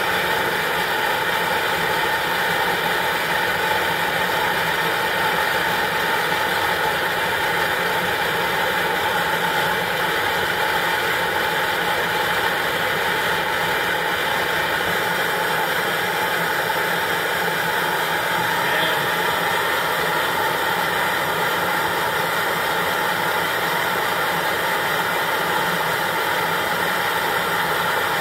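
Coleman Exponent Denali multi-fuel backpacking stove burning at full flame: the burner gives a steady, even rushing noise with no change in pitch or level.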